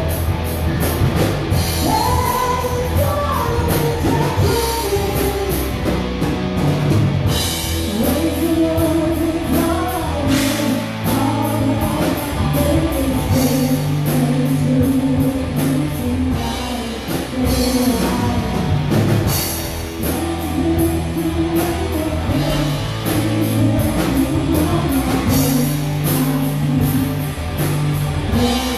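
Live heavy rock band playing: a woman singing lead over electric guitars and a drum kit with steadily struck cymbals.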